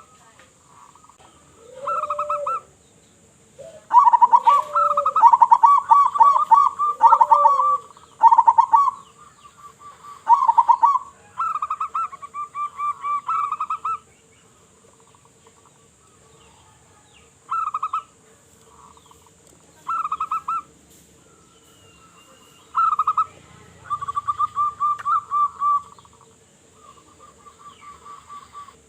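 Zebra doves (perkutut) cooing: bursts of rapid, trilled cooing notes, each lasting up to about two seconds, repeated with pauses between them. A few lower, softer coos come under them in the first third.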